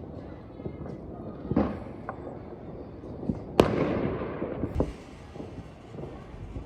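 Fireworks and firecrackers going off: several separate bangs, the loudest about three and a half seconds in, with smaller pops between them.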